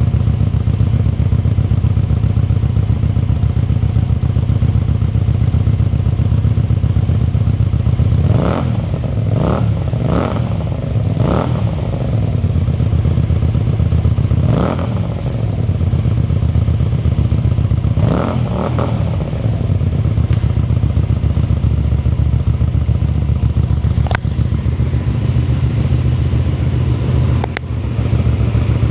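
Voge CU250 250 cc V-twin motorcycle engine idling steadily, blipped several times in the middle: quick revs that rise and drop straight back to idle, some in quick pairs. Two sharp clicks come near the end.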